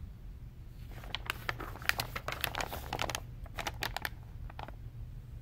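Pages of a picture book being turned and handled: paper crinkling and rustling in a run of small crackly clicks, starting about a second in and dying away near the end.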